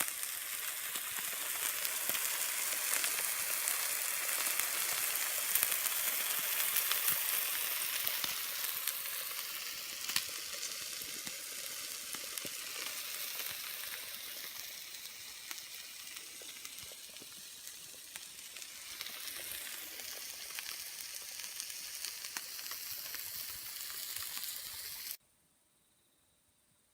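A steady crackling hiss, full of fine pops, that cuts off suddenly near the end.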